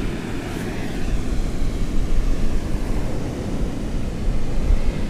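Wind buffeting the microphone in a rough, steady rumble, over the wash of ocean surf.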